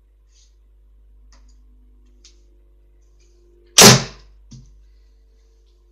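A field-tipped arrow shot at very short range strikes a hard cardboard target with one sharp, loud thwack about four seconds in that dies away quickly. A smaller knock follows half a second later, with a few faint clicks before the shot.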